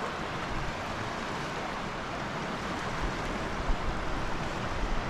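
Fast-flowing river rushing past rocks: a steady wash of water noise.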